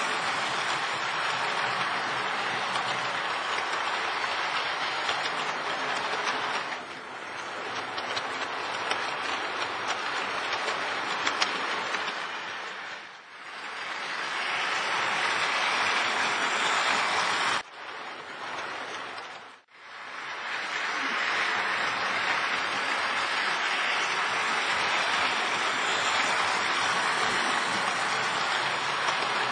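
Model train running on metal track: a steady rushing rumble of wheels and motor. It dips several times, cutting off sharply about two-thirds of the way through and almost vanishing for a moment before coming back at full strength.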